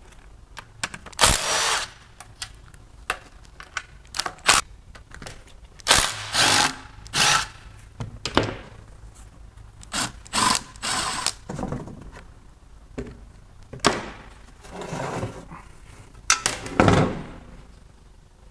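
Cordless power tool running in short bursts, one after another, as it spins out the oil pan bolts on a GM 5.3L V8, with short clicks and knocks between the bursts.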